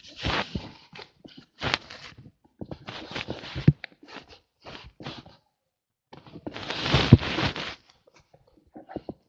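Irregular bursts of crunching and crackling handling noise, with sharp clicks and short pauses between; the longest burst comes about two thirds of the way through.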